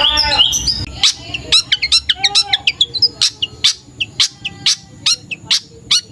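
Young long-tailed shrike singing: a few warbled notes in the first second, then a fast run of short, sharp chirps, about two to three a second.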